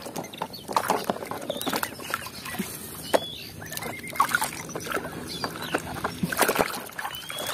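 Toy trucks being washed by hand in a plastic basin of muddy water: irregular splashing and sloshing, with small knocks of plastic against plastic.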